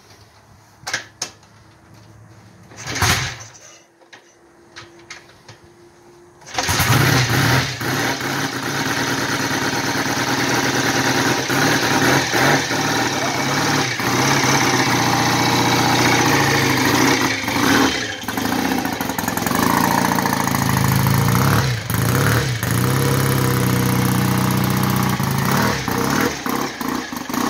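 1967 BSA Thunderbolt's 650 cc parallel-twin engine being cold-started with the carburettor tickled: two brief knocks, then it catches about six and a half seconds in and keeps running, with a few brief changes in engine speed.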